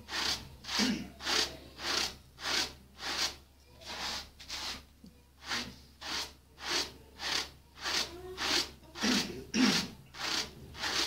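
Sheep's wool being carded by hand between two wire-toothed carding paddles: a rasping, brushing stroke repeated evenly, roughly every half second.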